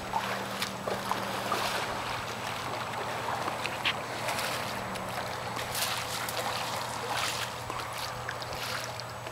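Water splashing and lapping as a seine net is hauled through the shallows, with many short irregular splashes, over a steady low hum.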